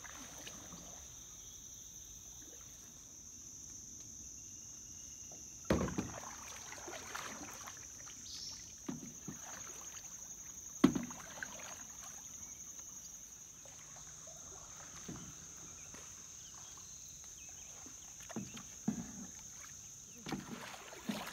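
Canoe paddles dipping and pulling through calm water in scattered strokes, with a sharp knock about eleven seconds in as a paddle strikes the aluminium canoe's side, the loudest sound. A steady high-pitched insect drone sits underneath.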